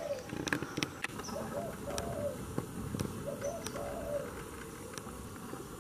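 A dove cooing: short low coo phrases of a few notes, repeated twice about two seconds apart, with faint scattered ticks in the background.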